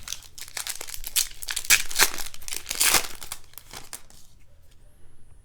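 Plastic foil wrapper of a baseball card pack crinkling and tearing as it is ripped open. The rustling is loudest in the first three seconds, then dies down.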